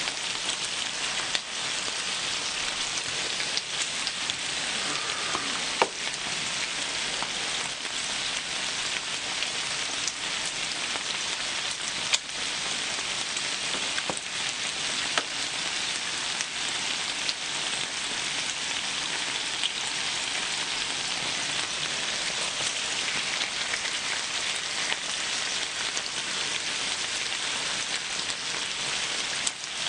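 Pork belly, pork neck, marinated pork and marinated duck sizzling steadily as they fry in their fat on a large flat griddle, with a few sharp clicks about 1.5, 6, 12 and 15 seconds in.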